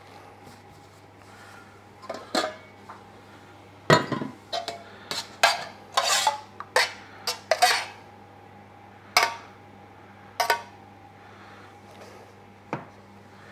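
Stainless steel clinking and clattering: lids lifted off and set down on steel food containers and a metal spoon knocking against them. A quick run of sharp knocks fills the middle, with one more near the end.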